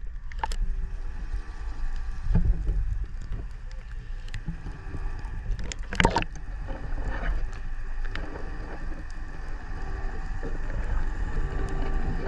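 Muffled underwater sound picked up by a submerged camera: a steady low rumble with a faint hum, broken by a few short knocks about half a second, two and a half and six seconds in.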